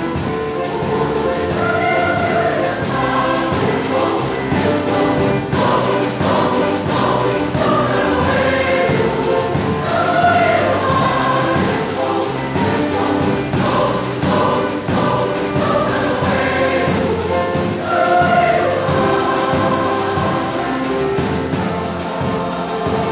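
Choir singing a choral arrangement, several voice parts together in sustained, shifting chords.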